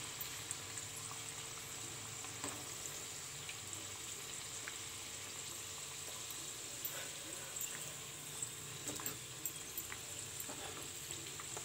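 Atta kachoris deep-frying in hot oil: a steady low sizzle with scattered small crackles as they are turned in the pan.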